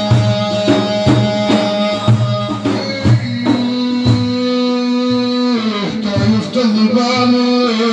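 Instrumental music with a steady drum beat under a long held melody line. The melody moves to a lower held note about three seconds in and slides downward a couple of seconds later.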